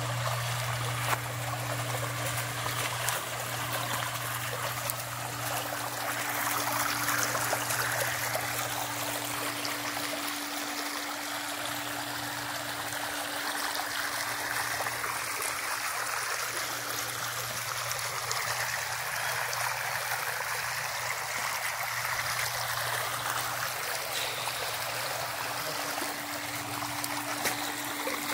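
Steady running water, like a stream or trickle, with a steady low hum underneath.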